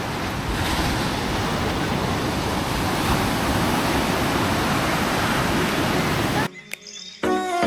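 Heavy ocean surf breaking on a beach, a steady rushing wash of waves that cuts off suddenly about six and a half seconds in. Music starts just before the end.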